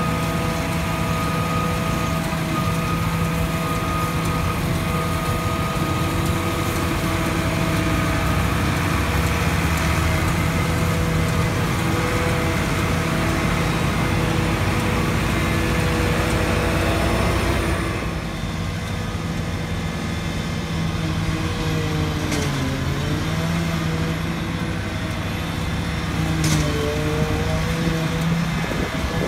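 Massey Ferguson 7720S tractor driving a JF FCT1050 trailed forage harvester, chopping grass and blowing it into a trailer, with the engine and forager running as a steady loud drone. About two-thirds of the way through the sound changes abruptly, and shortly after the engine pitch dips briefly under load and recovers.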